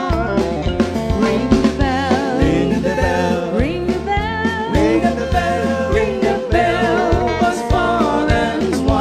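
Live country-style band: a woman's voice singing with vibrato over a drum kit keeping a steady beat and amplified backing instruments.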